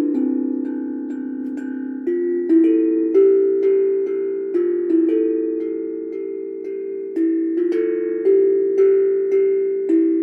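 Steel tongue drum played in a slow melody: single notes struck one after another, each ringing on and overlapping the next.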